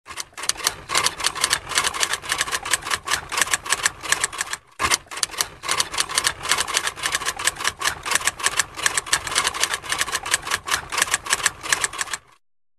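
Typewriter keys clacking in rapid succession, several strokes a second: a typewriter sound effect for text typing out. There is a brief break a little before the midpoint, and the clacking stops shortly before the end.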